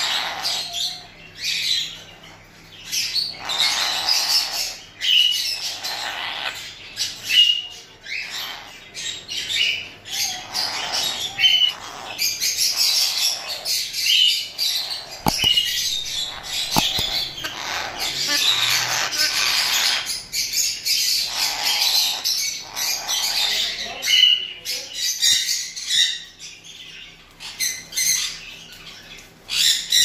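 An Amazon parrot squawking over and over, short harsh calls coming every second or so with brief gaps.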